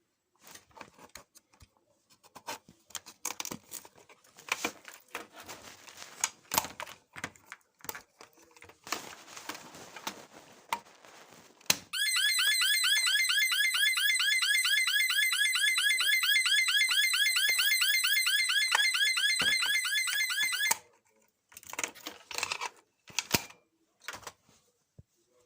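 Fire alarm sounder giving a loud electronic warble made of rapid rising sweeps, several a second, for about nine seconds, then cutting off suddenly. Before it start there are about twelve seconds of light clicks and knocks, and a few more clicks come after it.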